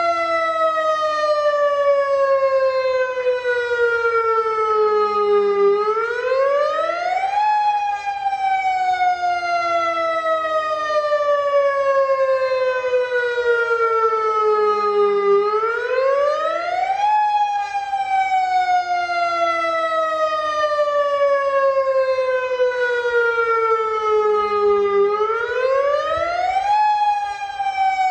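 Federal Signal Modulator electronic outdoor warning siren sounding its wail: a loud tone with many overtones that falls slowly for about eight seconds, then sweeps quickly back up over about two seconds, three times.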